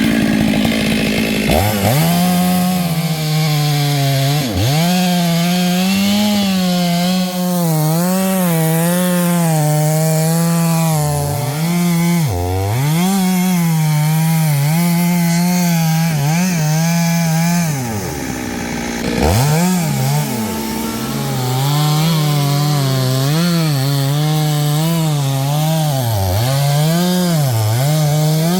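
Two-stroke Stihl chainsaw cutting wood at high revs, its engine pitch rising and sagging constantly as the chain bites. It dips sharply several times, most deeply about two-thirds of the way through, then climbs back to full speed.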